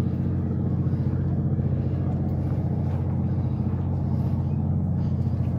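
A steady low engine drone holding one constant pitch, with no changes in speed or loudness.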